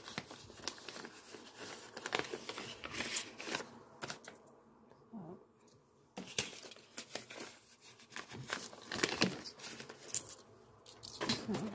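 Coins clinking and jingling in a hand as they are handled, with paper envelopes rustling between the sharp clinks.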